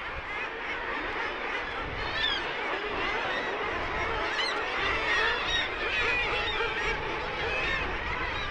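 Seabird colony calling: a dense, unbroken chorus of many birds' cries overlapping one another.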